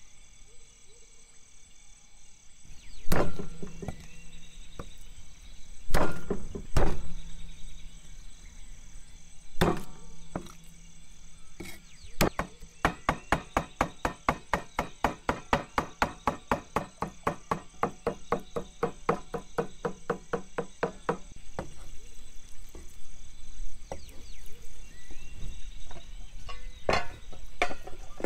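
Heavy cleaver chopping raw prawns on a thick wooden chopping block: a few single heavy blows, then rapid steady chopping at about four to five strokes a second for roughly ten seconds, and a couple more knocks near the end. Insects chirr steadily throughout.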